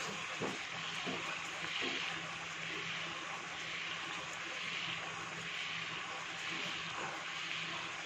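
Chicken frying in bubbling teriyaki sauce in a pan, sizzling steadily over a low steady hum, with a few clicks and scrapes of metal tongs against the pan in the first two seconds.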